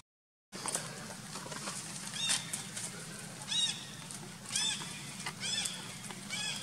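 A series of about five short, high-pitched animal calls, each rising then falling in pitch, over a steady background hiss. The sound drops out entirely for the first half-second.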